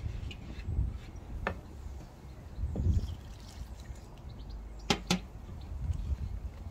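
Wind buffeting the microphone with a low, gusty rumble, over the light scrape and clicks of a wire whisk stirring flour in a bamboo bowl. Two sharp clicks come close together about five seconds in.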